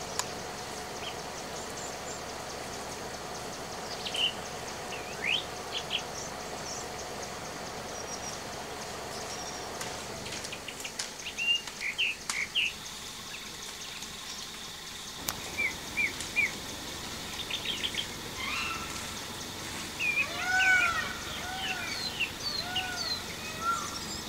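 Forest birds chirping and calling in short scattered notes over a steady background hiss. A faint steady hum runs under them for the first ten seconds or so. Toward the end comes a quick run of short calls that rise and fall.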